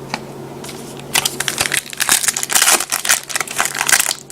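A trading-card pack wrapper being torn open and crumpled, a dense crinkling that starts about a second in and keeps going.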